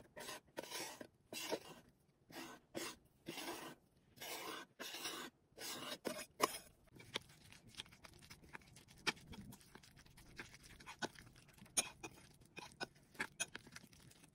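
A knife blade scraping chopped vegetables across a wooden cutting board into a glass bowl, in short strokes with brief gaps. About halfway through this gives way to a spoon stirring the vegetables into wet besan batter, with scattered light clicks of the spoon against the glass bowl.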